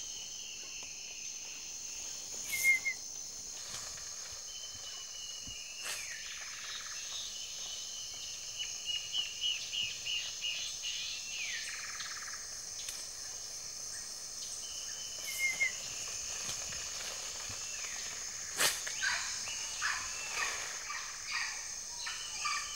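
Tropical rainforest ambience: a steady high-pitched insect drone with birds calling over it, a short trill about two and a half seconds in and again about fifteen seconds in, a run of quick chirps around nine to eleven seconds, and more scattered calls near the end. A couple of sharp clicks stand out, about six seconds in and again near nineteen seconds.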